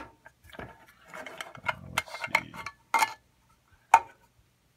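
Metal clicks and rattles from a vintage Boston hand-crank pencil sharpener as its metal shavings canister is worked off the body to expose the spiral cutter assembly. Two sharp clicks stand out, about three seconds in and a second later, the second the loudest.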